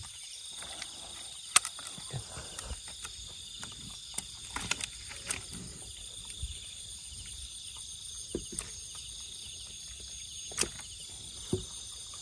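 Steady, high-pitched insect chorus, with scattered sharp clicks and knocks over it, the loudest about a second and a half in.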